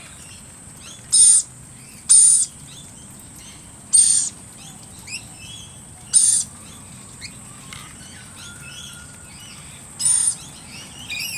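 Wild birds calling in a mixed flock: five loud, short, harsh screeches spaced irregularly, with many fainter chirps between them.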